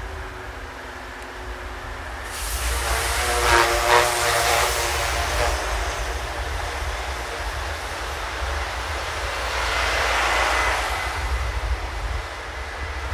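A rail vehicle passing close by, over a steady low rumble. The noise swells about two seconds in, with a brief pitched squeal or horn-like tone around four seconds in, then swells again later.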